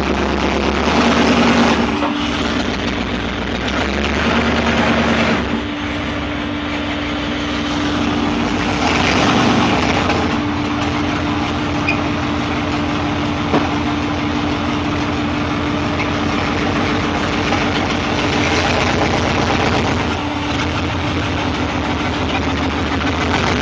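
A lifted Chevy truck's V8 engine idling, with a steady drone that swells into brief revs a few times in the first ten seconds.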